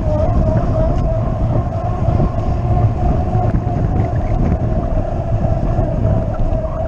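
Wind buffeting and rolling rumble picked up by a camera on a moving bicycle riding on a concrete velodrome track, with a steady mid-pitched hum running through it.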